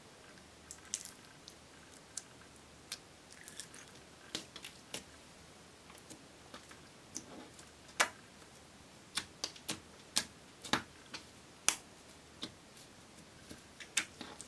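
Fingers pressing and poking clear glitter slime, giving irregular sharp sticky clicks and pops as air pockets in the slime burst, a few of them notably loud.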